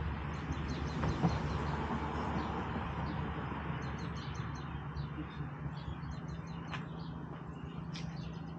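Small birds chirping in short, high repeated calls over a steady low background rumble, with a single knock about a second in.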